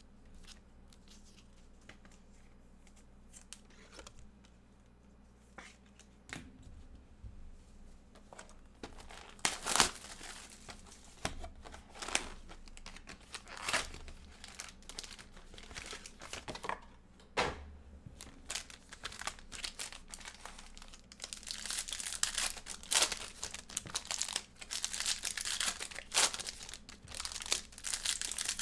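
Football trading card box being opened and foil card packs handled and torn open: cardboard flaps and wrappers crinkling and tearing. It starts with only a few faint clicks, grows into sharp handling noises after about nine seconds, and becomes a dense, continuous crinkling in the last third.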